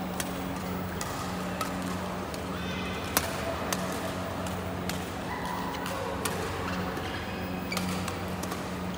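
Badminton rackets striking shuttlecocks: sharp cracks about once a second from several courts, the loudest about three seconds in, over a steady low hum.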